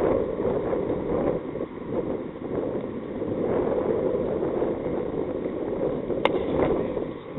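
Wind buffeting the microphone, a steady rushing rumble, with one sharp crack a little over six seconds in as a cricket bat strikes the ball.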